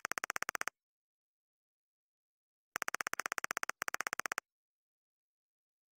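Text-typing sound effect: a fast train of identical electronic blips, about sixteen a second, as captions type out letter by letter. A short run at the start, then a longer run of about a second and a half near the middle with a brief break in it.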